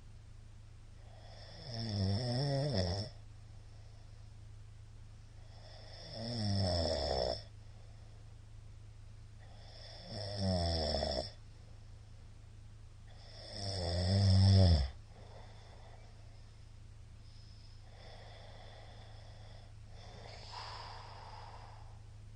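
A man snoring in his sleep: four loud snores about four seconds apart, each lasting about a second, the last one the loudest. Quieter breaths follow near the end, over a steady low hum.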